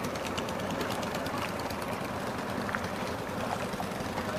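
Small boat's engine running steadily while the boat moves along the river.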